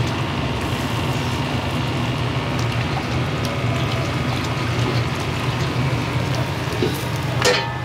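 Chinese restaurant kitchen noise: a steady low roar with a watery hiss running over it, and a sharp clink near the end.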